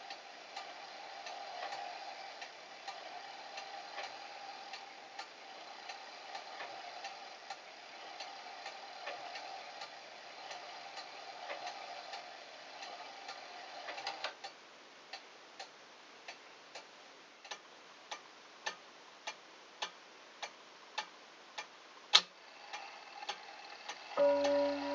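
Junghans A27 wall clock movement ticking evenly, a little under twice a second, with a steady background hum that stops about 14 seconds in. One louder click comes about 22 seconds in, and near the end the strike begins, a hammer ringing the clock's chime rods.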